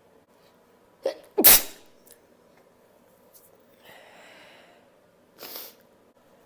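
A person sneezing without holding it back: a short sharp catch about a second in, then one loud, explosive sneeze. A softer breath follows, then a shorter, quieter burst near the end.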